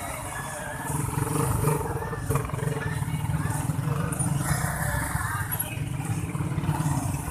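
A vehicle's engine and road rumble, heard from inside the cabin while driving: a steady low drone.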